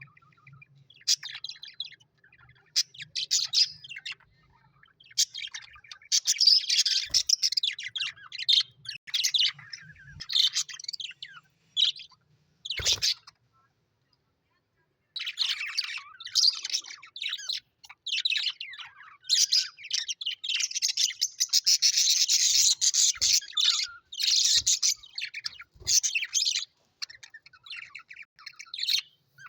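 Small pet parrots chirping and warbling in rapid high-pitched bursts, with a silence of about two seconds near the middle.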